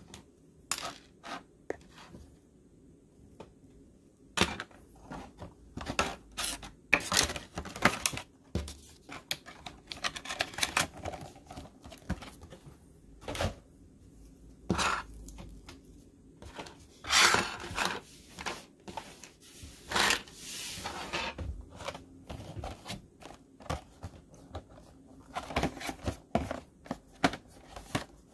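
Irregular clicks, taps and short rustles of hard plastic action figures and their small accessories being handled, posed and set down on a wooden table.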